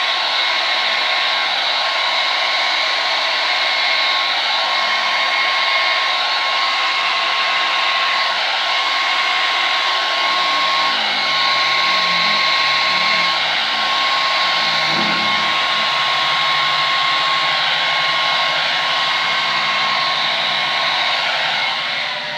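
Handheld hair dryer running steadily, a rush of air with a steady whine, blowing across wet epoxy resin; it switches off suddenly near the end.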